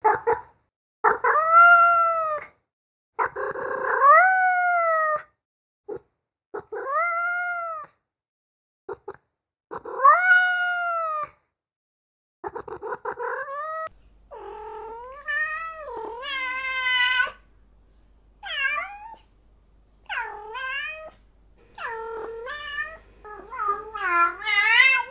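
Domestic cat meowing: four long, drawn-out meows a few seconds apart, each rising then falling in pitch. About halfway through, a run of shorter, quicker meows with a wavering pitch follows over a faint steady hum.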